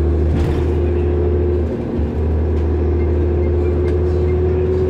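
City transit bus running down the road, heard from inside the passenger cabin: a steady engine and drivetrain drone with a constant whine over it. The drone dips briefly about two seconds in.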